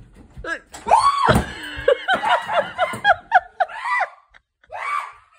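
A person screaming in fright, then shrieking and laughing in a quick run of short, high-pitched bursts, a startled reaction to what looks like a snake on the floor.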